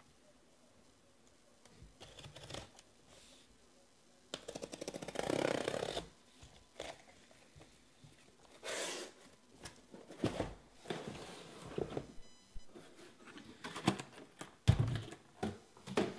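A cardboard shipping case being opened and unpacked: a long tearing scrape of packing tape and cardboard flaps about four seconds in, then a run of knocks and sliding scrapes as shrink-wrapped card boxes are lifted out and set down on the table.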